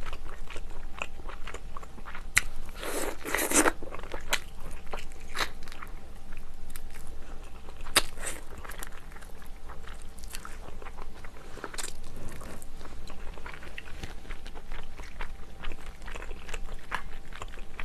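Close-miked eating: wet chewing, biting and small mouth clicks and crackles as pieces of bony monkfish from a spicy seafood stew are eaten, with a louder, denser stretch about three seconds in.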